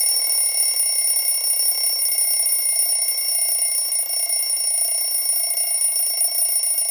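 Mechanical twin-bell alarm clock ringing: one continuous, steady, high-pitched jangle of the hammer striking the bells.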